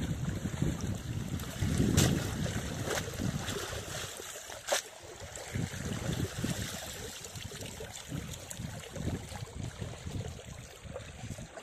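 Shallow water splashing and sloshing as a bamboo box cage fish trap is lifted out and held while a person wades. Two sharp clicks come about two seconds in and again near five seconds.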